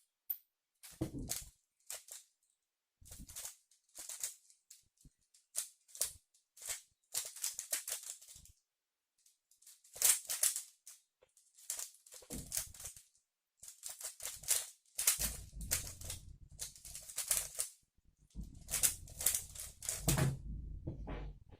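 Rubik's speedcube being turned fast during a timed solve: bursts of rapid plastic clicking and clacking, broken by short pauses, with a low rumble of handling under the turning in the last few seconds.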